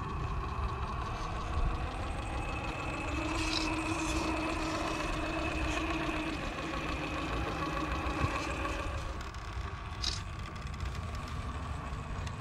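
Electric motor and gearbox of a radio-controlled crawler truck whining steadily as it drives, over a low rumble, with a few brief clicks.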